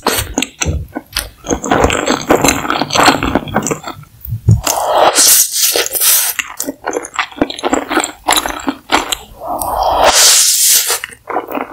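Close-miked slurping and wet chewing of saucy instant noodles, full of sticky mouth clicks and smacks, with long hissy slurps about five seconds in and again near ten seconds.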